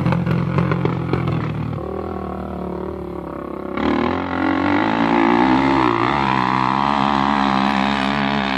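Quad (ATV) engine revving unevenly under load on a steep sand hill, its pitch wavering up and down; it gets louder and brighter about four seconds in.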